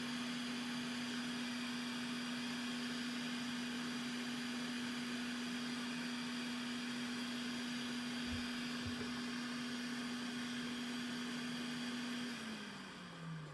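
Small electric blower motor running with a steady hum and airflow hiss. Near the end it is switched off and winds down, its pitch falling.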